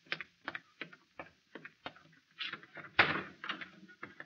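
Radio-drama sound effects of footsteps, about three a second, followed by a car door opening and then shutting with a loud thump about three seconds in.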